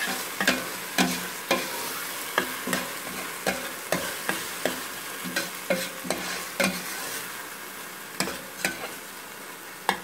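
Spice masala sizzling as it fries in a stainless steel pot, stirred with a metal spoon that scrapes and clinks against the pot in irregular strokes, about two a second.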